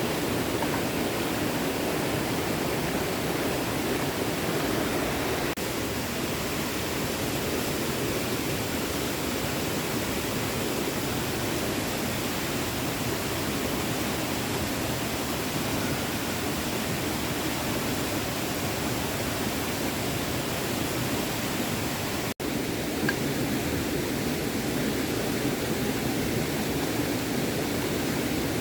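Water of a small stream flowing steadily, a continuous rushing hiss with a brief break about three-quarters of the way in.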